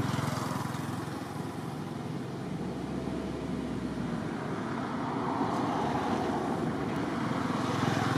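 Road traffic: motor vehicle engines passing by, the running sound swelling as one goes past at the start and another near the end.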